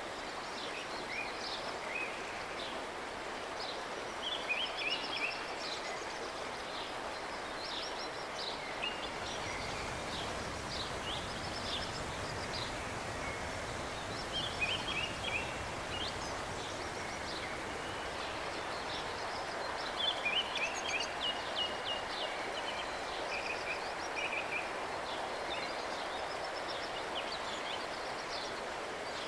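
Steady rush of river water running over shallow riffles, with songbirds singing in short bursts of quick high chirps several times over it.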